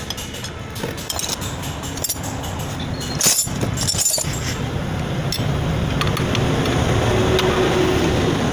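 Steel combination spanners clinking and tapping against the clutch pressure-plate bolts of a Bajaj Pulsar motorcycle during a clutch-plate change, with a sharper knock about three seconds in. A low rumble grows louder in the second half.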